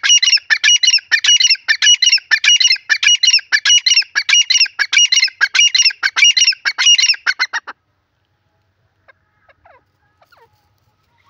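Grey francolin calling: a loud, fast series of repeated shrill phrases that stops about two-thirds of the way through.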